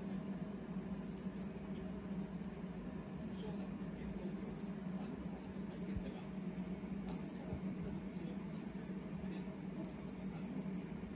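Cat teaser wand toy jingling and rattling in short, repeated bursts as it is shaken about, over a steady low hum.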